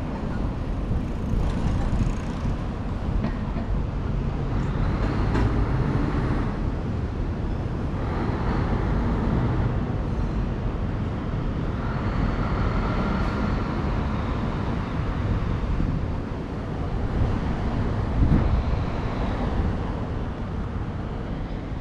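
Road traffic noise: a steady low rumble that swells several times as vehicles pass.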